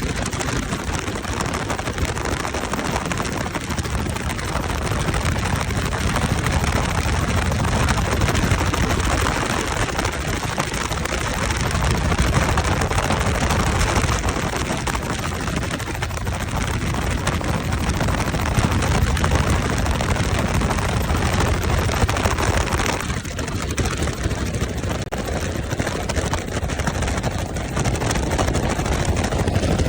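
Helicopter engine and rotor running steadily.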